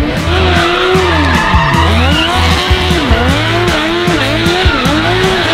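Suzuki Hayabusa motorcycle engine in a Honda mini truck, revved hard and repeatedly up and down as the truck drifts, with tyres skidding and squealing. Background music with a bass beat runs underneath.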